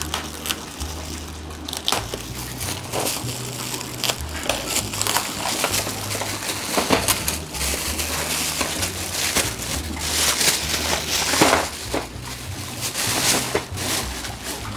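Clear plastic wrapping crinkling and rustling in irregular scrunches as it is peeled and pulled off a new aquarium top filter.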